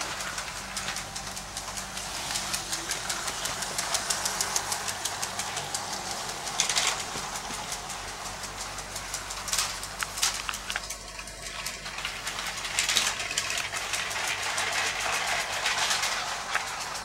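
LEGO 12V electric train running on grey plastic 12V track, its wheels clicking rapidly over the rail joints, with a few louder clacks and a faint low electrical hum underneath.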